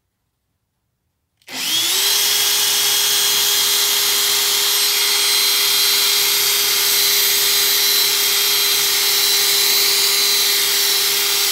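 Makita DHP458 18 V cordless drill starting about a second and a half in, spinning a small wire wheel brush against the threaded end of a brass tap. The motor's pitch rises quickly, then holds as a steady whine over the scratchy hiss of the wire bristles scrubbing the metal. It stops abruptly at the very end.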